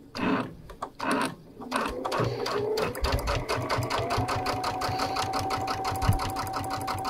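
Brother sewing machine stitching a quilt binding down: it picks up speed about two seconds in and settles into a rapid, even run of needle strokes over a motor whine that rises and then holds steady.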